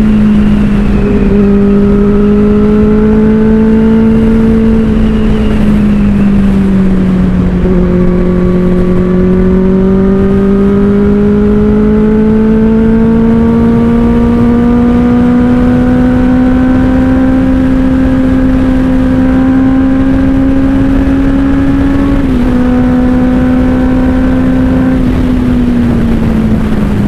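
Benelli 600i inline-four motorcycle engine running through an IXIL aftermarket exhaust while riding. The engine note dips about six seconds in, then climbs slowly for some fifteen seconds under steady throttle, steps about 22 seconds in and falls away near the end.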